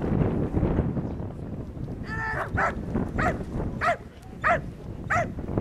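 A Malinois-type dog barking in an even rhythm, nearly two barks a second, from about two and a half seconds in. This is the guard-and-bark at the helper in protection work. Before the barking there is a rough noise while the dog is still at the bite sleeve.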